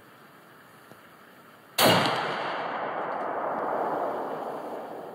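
A single loud rifle shot from a scoped hunting rifle fired off a bench rest, about two seconds in, followed by a long echo that fades over about three seconds. It is a test shot to check that the rifle is shooting true.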